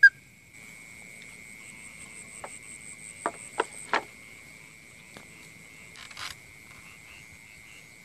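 Steady, high-pitched chirring of night insects such as crickets, with a few sharp clicks in the middle. It opens on the clipped tail of a short whistled note.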